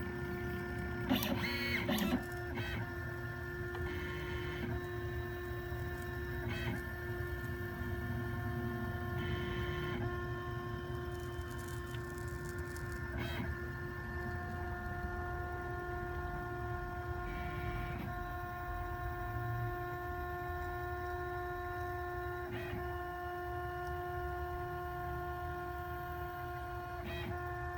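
OX CNC gantry's stepper motors driving the pen plotter as it draws hatch lines. A steady whine of several tones shifts with each move, with a brief click now and then and a louder clatter about a second in.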